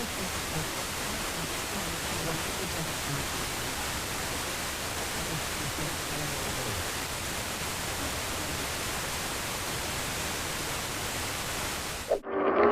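Steady hiss of radio static from a weak, noisy radio signal. It cuts off abruptly near the end as a louder, clearer signal comes on.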